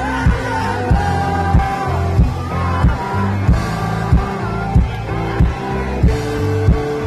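Live rock band playing on stage: strummed guitars, bass and a singer over a steady kick-drum beat, a little over one and a half beats a second.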